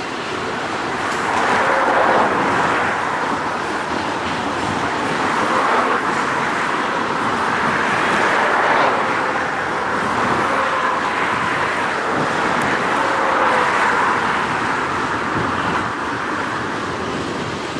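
A train rolling past, its wheels on the rails making a steady rumble that swells and eases every few seconds.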